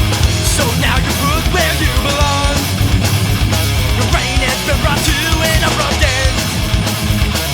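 Loud punk rock music: a full band with guitars and drums playing an instrumental passage.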